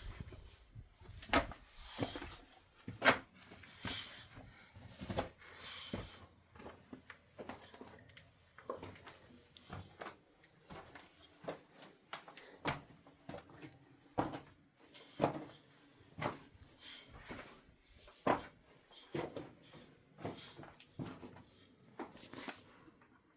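Footsteps on stony ground: a steady walking pace of short crunching steps, a little under one a second.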